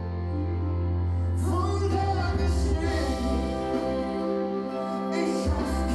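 Background music: a song with sustained chords over a steady bass line.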